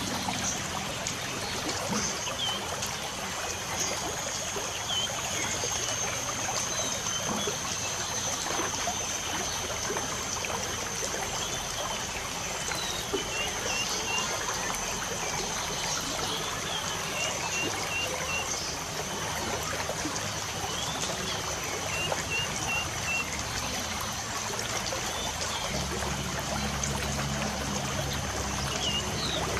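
Light rain falling with a steady hiss, with small birds chirping now and then in quick runs of three or four notes. A steady high tone sounds beneath them.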